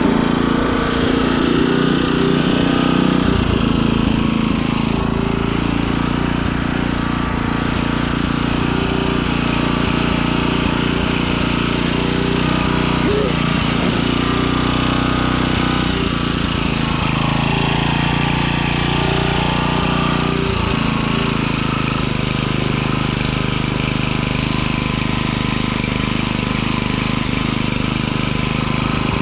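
Small gasoline-engine garden tiller running steadily, its tines churning the soil of a raised bed.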